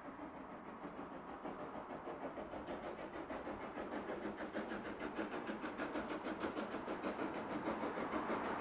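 Steam locomotive working a train, its exhaust beats coming fast and evenly and growing steadily louder.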